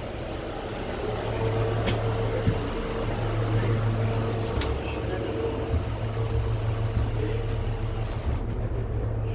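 Steady low drone of aircraft and ground machinery on an airport apron, with a held mid-pitched whine over it. Two sharp clicks come about two seconds and four and a half seconds in.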